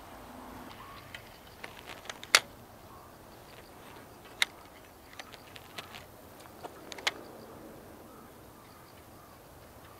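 Irregular sharp clicks and taps from fishing tackle being worked as a lure is nudged along with short twitches, three louder clicks about two seconds apart among fainter ones.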